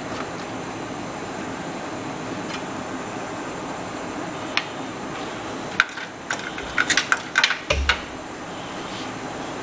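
Power-supply cables and plastic connectors being handled inside a computer case: a single sharp click, then a quick cluster of clicks and rattles with a dull knock at its end, about six to eight seconds in, over a steady background hum.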